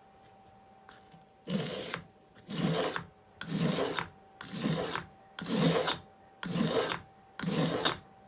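A steel plane blade scraped back and forth on the coarse side of a dry whetstone: seven even, rasping sharpening strokes, about one a second, starting about a second and a half in.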